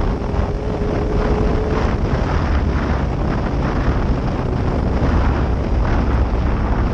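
Heavy wind noise on the microphone over the steady running of a 2005 Suzuki GSX-R 750's inline-four engine while riding.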